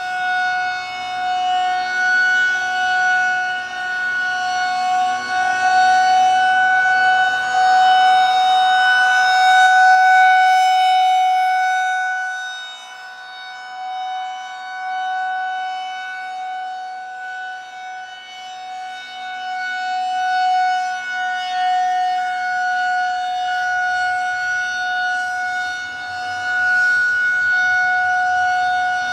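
Federal Signal 2001-130 electromechanical rotating siren holding a steady alert tone. Its loudness swells and fades slowly as the horn turns toward and away from the listener.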